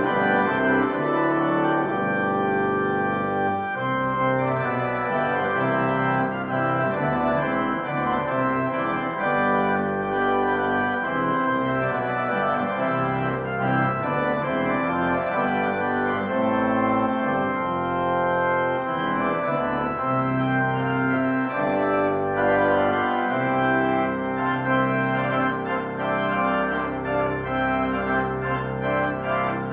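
Church organ playing sustained chords that move every second or two, at a steady level, without singing.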